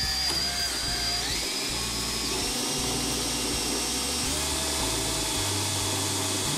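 DeWalt cordless drill running continuously as it drills a hole into the trailer's front wall, its whine stepping up in pitch about a second in and again a second later.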